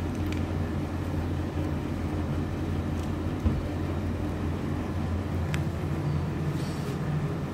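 Steady low background rumble with a few faint clicks and a short knock about three and a half seconds in.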